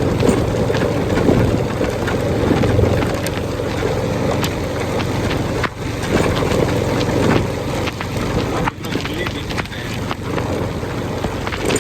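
Wind rushing over a phone microphone on a motorbike riding through heavy rain, with the engine running underneath and scattered short clicks.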